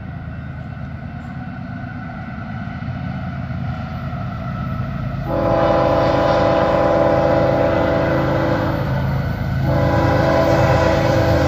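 Union Pacific GE C45ACCTE diesel locomotive approaching with a low engine rumble, then sounding its multi-chime air horn: one long blast from about five seconds in, a brief break, and a second long blast near the end, warning for a road crossing.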